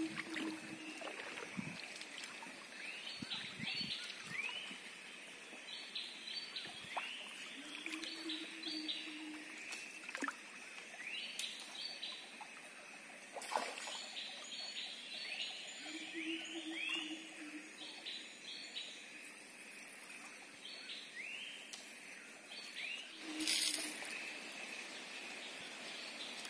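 Tropical estuary forest ambience: many short rising-and-falling bird whistles over a steady high drone, with a low hooting note about every eight seconds. A brief sharp noise, the loudest sound, comes near the end.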